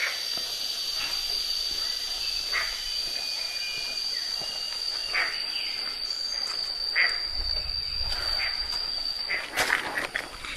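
A cicada's steady high-pitched drone, which cuts off suddenly about nine seconds in. Short taps sound now and then, bunching into a run of louder knocks near the end.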